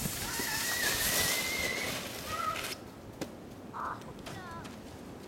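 A sled sliding over thin, crusty snow, a scraping hiss that cuts off abruptly about two and a half seconds in as the slide stops.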